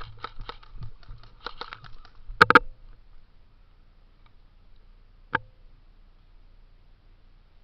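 Quick, light footsteps as players rush in. About two and a half seconds in comes a short burst of three sharp airsoft gun shots, and a single shot follows a few seconds later.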